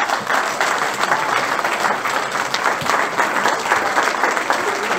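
Audience applauding, many people clapping at once at a steady, loud level.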